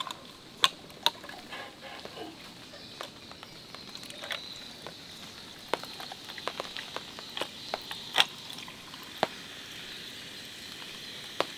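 Canned lemon sour being poured into a glass full of ice: the carbonated drink fizzing and hissing as it runs over the ice, with scattered sharp clicks and pops from the ice. The fizzing builds about a third of the way in, once the pour starts.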